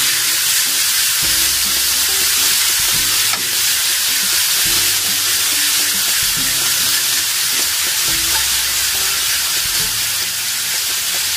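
Chicken drumsticks frying in oyster sauce in a wok, sizzling steadily with a dense hiss as the wok is tossed to coat them.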